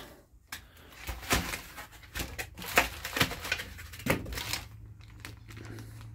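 Packaging being handled: plastic wrap on the speaker grilles crinkling, with scattered light clicks and knocks against cardboard. A faint low hum comes in about four seconds in.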